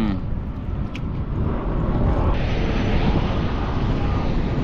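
Jet airliner flying low overhead, a steady roar of jet engine noise that grows fuller and louder a little over two seconds in as it comes closer.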